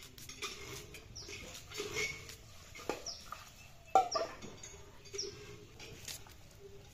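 Chickens calling: a few short, high chirps that fall in pitch, scattered through. Light clicks come from shallots being peeled and sliced on a boti blade, with one sharp knock about four seconds in.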